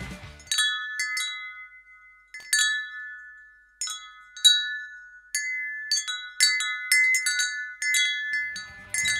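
Wind chimes ringing: irregular light strikes on a handful of high, bell-like pitches that overlap and ring on, starting about half a second in.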